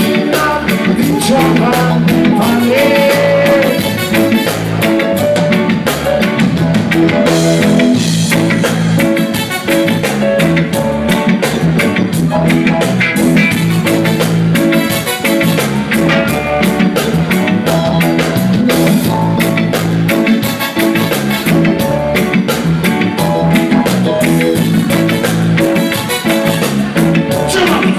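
Live reggae band playing loudly: drum kit, electric guitars, bass guitar and keyboards with a steady beat, and a singer on the microphone.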